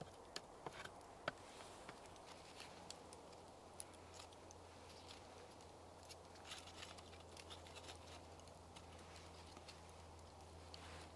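Wood on wood at a Finnish candle (split-log torch): a stick pokes in the slot with a few sharp clicks in the first second or so. Then come light scattered clicks and rustles as dry wood shavings are dropped in. Faint overall.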